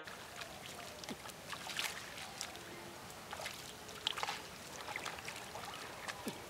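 Faint sloshing and splashing of shallow water and mud as a person wades through a flooded paddy field and works the mud by hand, with scattered small splashes.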